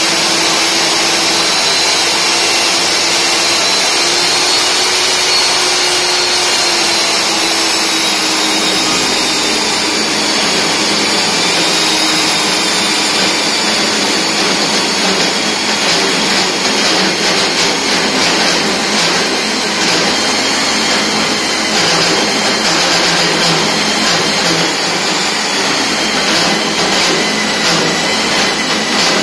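Electric diamond core drill boring through a reinforced concrete (RCC) wall: the motor runs steadily under load with a high whine that wavers slightly in pitch, over a dense grinding noise of the bit cutting concrete.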